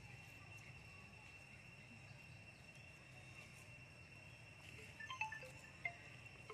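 Quiet outdoor ambience with a faint steady high hum; about five seconds in, a scatter of short, clear tinkling notes at several different pitches begins.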